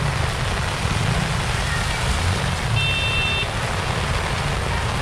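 Heavy typhoon rain pouring steadily on a flooded street, with a car driving through the water close by. A short high beep sounds about three seconds in.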